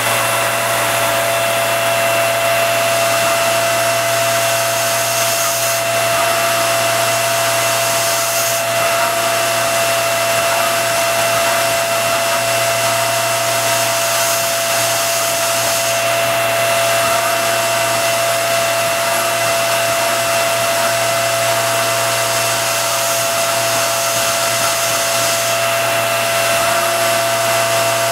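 RF45 CNC mill conversion's spindle running at about 6800 RPM while a 1/8-inch cutter mills the front 3D lightening panels of a 1911 pistol slide: a steady whine with a hiss over it, unchanging throughout.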